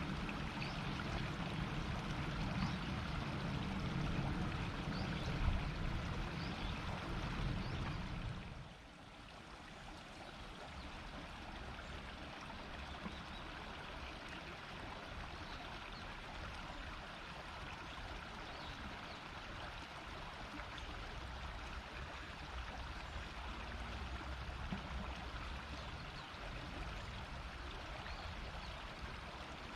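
Shallow river babbling and rushing steadily over stones. A heavy low rumble under the water sound stops abruptly about nine seconds in, and the flow is quieter after that.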